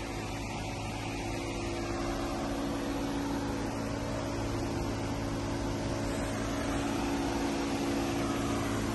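Steady mechanical hum with a few low held tones, growing slightly louder toward the end.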